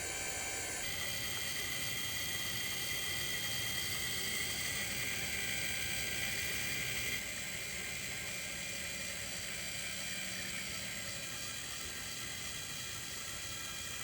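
Small 12-volt DC motor of a linear actuator whining steadily as it drives the chicken coop door panel, with a slight change in tone about seven seconds in.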